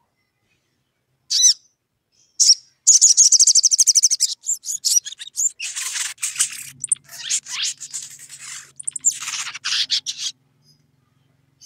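Male olive-backed sunbird calling to a rival: two short sharp chirps, then a fast high trill about three seconds in, followed by several seconds of rapid, scratchy chattering notes that stop near the end.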